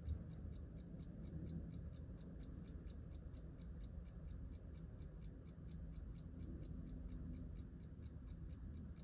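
Restored fusee pocket watch running, its movement ticking faintly and evenly at about five ticks a second.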